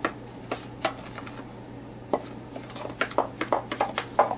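Metal spoon clinking and scraping against a stainless steel mixing bowl while stirring dry flour and cornmeal. A few scattered clinks at first, then a quick run of clinks in the last second and a half.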